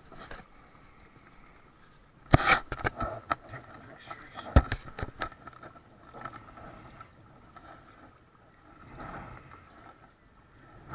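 Sharp knocks and scrapes on a plastic sit-on-top kayak as gear is handled aboard: a burst of clicks a couple of seconds in and a few more around four to five seconds in, then a softer rush of water about nine seconds in.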